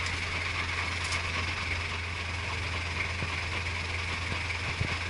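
Inboard motor of a wooden river boat running steadily while under way, heard from on board: a constant low hum under an even hiss.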